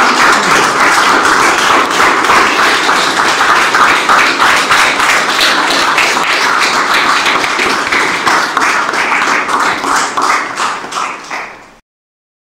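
A small crowd applauding with hand claps, dense and steady, easing slightly near the end before stopping abruptly.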